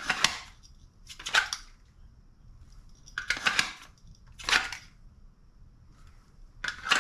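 Hard-plastic competition holster being handled: five sharp clacks, roughly one to two seconds apart, as the holster and its lock are worked.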